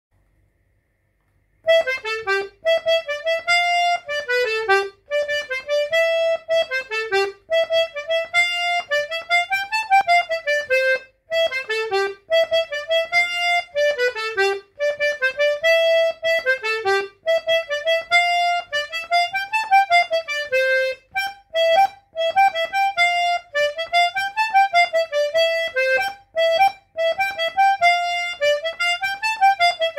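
Boretti diatonic button accordion playing a folk dance tune in C, a melody in short repeating phrases; the playing begins about two seconds in.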